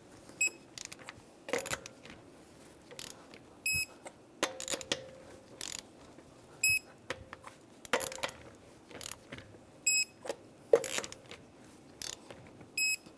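Torque wrench beeping in a short string of rapid high beeps each time a lug nut reaches its set torque of 130 ft-lb, four times in all. Between the beeps come clicks and clunks of the socket going onto the lug nuts.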